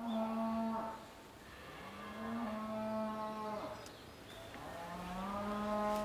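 Cattle lowing: three long moos in a row, each held for one to two seconds, the last rising in pitch as it begins.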